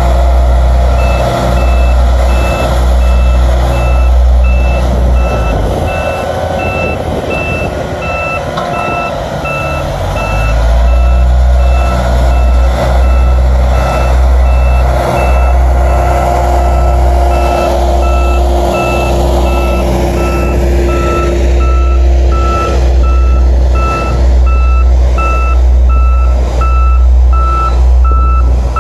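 Backup alarm of a double-drum asphalt roller beeping steadily about twice a second, with a second, lower-pitched backup alarm beeping along from about seven seconds in. Under both, heavy diesel machinery rumbles loudly, easing for a few seconds near the first third.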